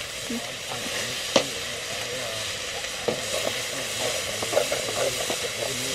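Dubia cockroaches sizzling in a metal pot over a wood fire, with a steady hiss. Scattered clicks and scrapes come as they are stirred with a stick, and a sharp knock about a second and a half in is the loudest sound.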